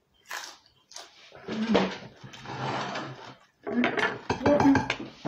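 Close-up crunching of crispy fried food being chewed, with a hummed sound in the middle. In the second half comes a quick run of clicks and knocks from dishes being handled on the table.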